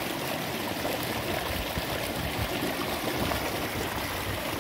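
Steady rushing of creek water churning white as it pours along a concrete wall.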